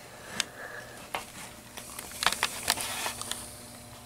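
Close handling noises: a few sharp light clicks and some rustling, with a quick cluster of louder clicks about two seconds in.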